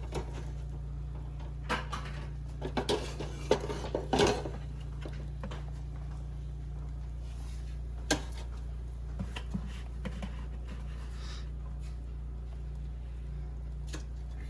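Pots and kitchenware being handled: a series of short knocks and clinks, the loudest cluster about four seconds in and a single knock near eight seconds, over a steady low hum.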